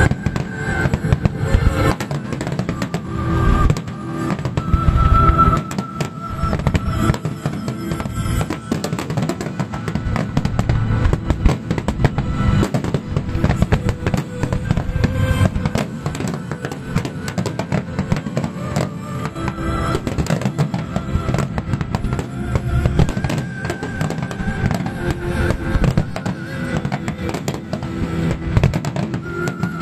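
Fireworks finale: a dense, continuous barrage of shells bursting in rapid bangs and crackles, with music playing along.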